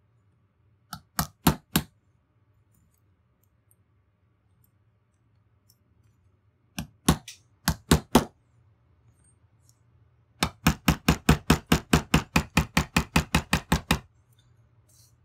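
Metal taps on a punch driving the roll pin that retains the firing pin into a Ruger 10/22 bolt. A few taps come about a second in and a few more around seven to eight seconds, then a quick run of about twenty taps at roughly six a second.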